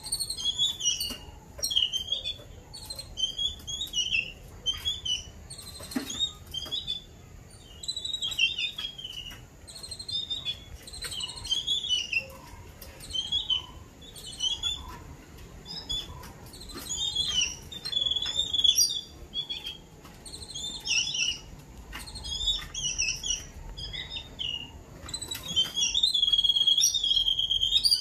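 Babblers calling in a rapid chatter of short, harsh calls, one after another, as adults feed their caged chicks. Near the end one call is held steady for about two seconds. A few sharp clicks are mixed in.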